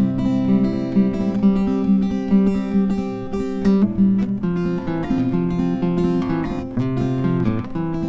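Background music: acoustic guitar playing chords and plucked notes.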